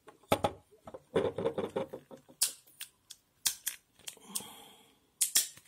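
Hard shell of a green walnut being cracked and pried open by hand: a run of short, crunching cracks and snaps, some in quick clusters. The shell has already hardened.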